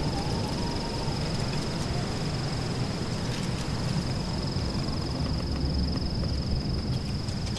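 Steady background ambience: a continuous high-pitched, fluttering trill over hiss and a low rumble, with a few faint ticks.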